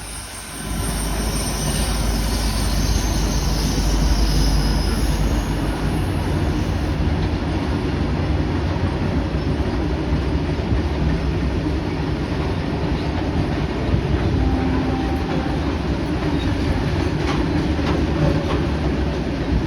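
Long freight train of oil tank wagons rolling along the track, a steady heavy rumble of wheels on rail that swells up about a second in and holds. A high-pitched wheel squeal rides over it for the first few seconds.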